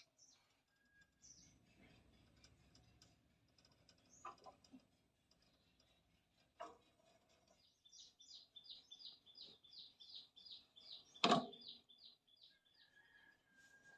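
Small bird singing faintly: a run of quick repeated high chirps, about four a second, in the second half, with a few scattered chirps before it. A single sharp knock sounds near the end.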